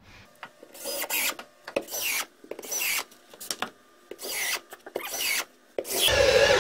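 Cordless drill driving 2-inch T20 Torx screws into a plywood wall: six short bursts of the motor about once a second, each rising and falling in pitch as a screw goes in, the last one loudest.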